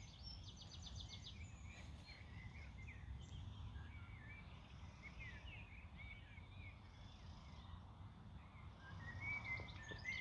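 Faint birdsong from several small birds: short chirps and twitters throughout, with a quick rattling trill about half a second in, over a low steady outdoor rumble.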